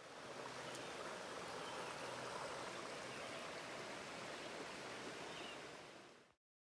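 Clear, rocky woodland stream babbling and rushing steadily over stones, fading out and cutting off near the end.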